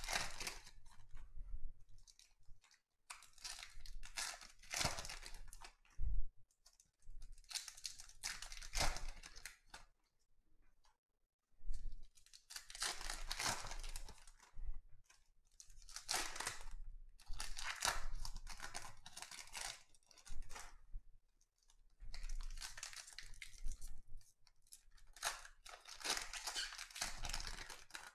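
Trading card pack wrappers being torn open and crinkled, in repeated rustling bursts a second or two long with a short lull about ten seconds in.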